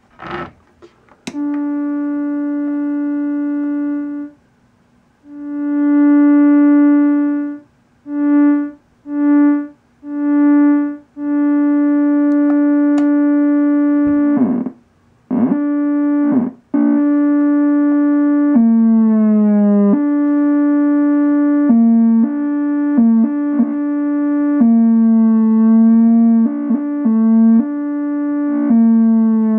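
Moog Werkstatt-01 analog monosynth playing a single buzzy note rich in overtones. It is held at first, then cut into a few short notes that swell in. From about halfway the pitch repeatedly steps and bends down and back, worked from the newly added soft-pot pitch-bend strip.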